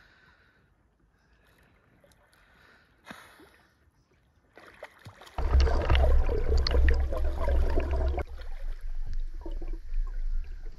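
Faint water sounds, then rushing, splashing water with a low rumble that comes in suddenly about five seconds in and stays loud.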